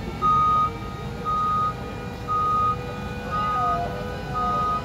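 Warning beeper of a Mototok Spacer electric towbarless aircraft tug: a single high beep about half a second long, repeating about once a second, five times, over a steady low hum.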